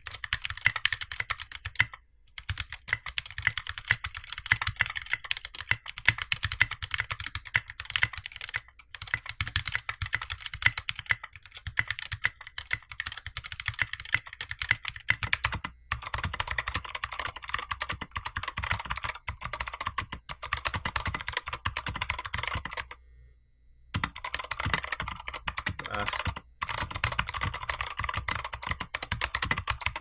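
Fast typing on mechanical keyboards fitted with MAXKEY Miami Nights SA-profile double-shot ABS keycaps. It starts on factory-lubed linear Gateron Red switches. About 16 seconds in it changes to clicky Kailh Box White switches, which give a brighter, clickier rattle of keystrokes, with a short pause near the 23-second mark.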